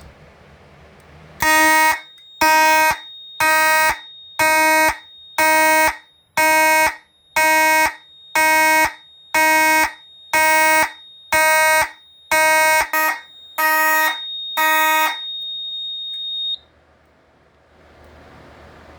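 Fire alarm system in alarm after its smoke detector was smoked out: a buzzy electronic horn sounds in even pulses about one a second, over a steady high-pitched tone. The horn is silenced after about a dozen pulses, and the steady tone stops a second or so later.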